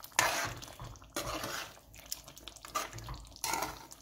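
A slotted spoon stirring chicken karahi, a thick, oily curry sauce with chicken pieces, in a metal pan: wet, sloshing stirring sounds in four short bursts, the first the loudest.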